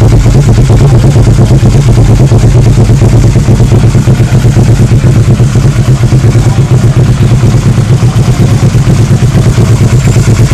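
Kawasaki ER-6n's 649 cc parallel-twin engine running steadily through a LeoVince SBK slip-on exhaust, a loud, fast-pulsing exhaust note held at a constant speed with no revving. It is slightly softer in the middle.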